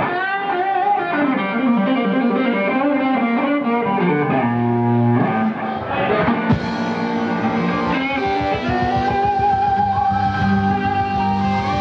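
Live band music led by an electric guitar solo with bending, wavering notes over a steady beat, ending on a long held wavering note.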